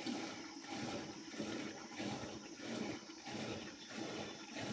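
Yogurt sloshing rhythmically in a hand churn as the churning stick is pulled back and forth, about one and a half strokes a second: milk being churned to make buttermilk and butter for ghee.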